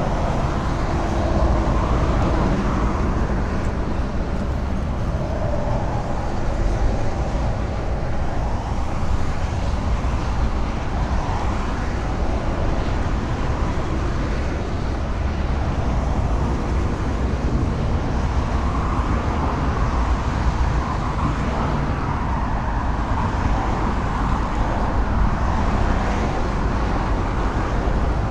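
Steady highway traffic: a continuous wash of passing vehicles and tyre noise with a deep low rumble, swelling and easing every several seconds as vehicles go by.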